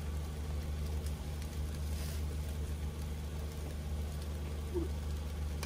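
A steady low hum of an idling engine.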